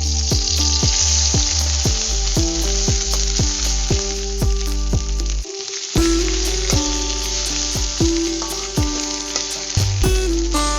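Food frying in hot oil in a pan, a steady sizzle with stirring, under background music with a steady beat.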